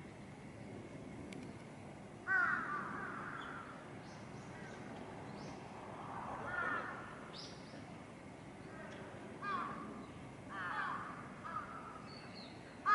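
Crows cawing: a series of harsh caws at irregular intervals, the loudest about two seconds in and several more through the second half.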